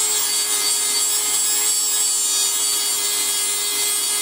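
Rotary tool (Dremel-type) with a small abrasive cut-off wheel running at steady speed and grinding metal: a steady high motor whine under a harsh hissing grind. It is cutting through a tack weld on a pie-cut exhaust section.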